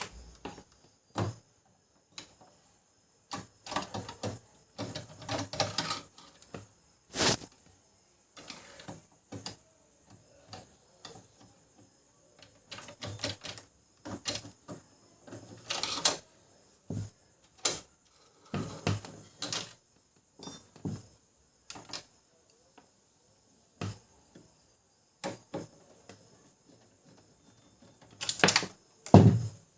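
Irregular clicks, ticks and short clatters of screws being worked out of a laser printer's plastic housing with a screwdriver, and of screws and small parts being set down.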